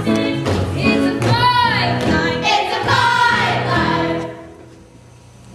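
Stage cast of a musical singing a number together. The group singing includes a held, wavering note about a second and a half in, and the singing drops away about four seconds in.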